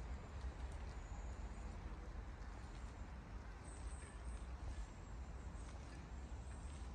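Faint footsteps on wet tarmac over a steady low rumble.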